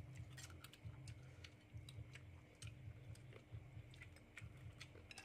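Faint, scattered clicks and taps of spoons and forks against ceramic plates and bowls during a meal, over a low steady hum.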